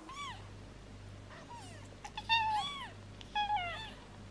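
Newborn kitten mewing: a series of about six short, high, thin mews that rise and fall in pitch, the loudest ones in the second half.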